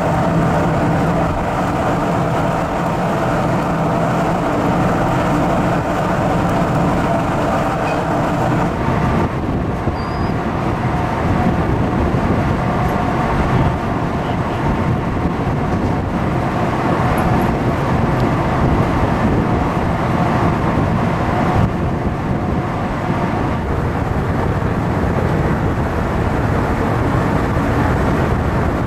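Steady drone of a car ferry's engines heard from the open deck, mixed with the rush of wind. About nine seconds in, the steady hum gives way to a rougher, noisier rush.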